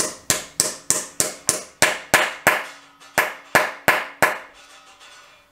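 Repeated sharp metal-on-metal taps, about three a second with a short pause about three seconds in, as a Keysert installation tool is hammered to drive the insert's locking keys into a repaired exhaust manifold stud hole in the SR20DET's aluminium cylinder head. A faint ring follows some taps.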